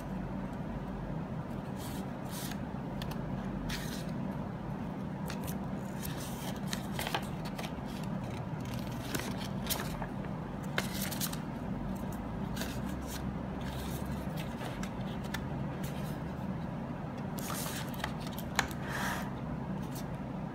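Intermittent rustling, scraping and light clicks of packaging being handled: a fabric pouch, a paper leaflet and a USB cable, over a steady low hum.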